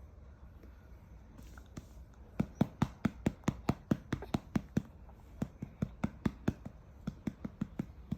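A hand patting a newborn baby's back to bring up a burp: quick soft pats, about four or five a second, in short runs that begin a couple of seconds in.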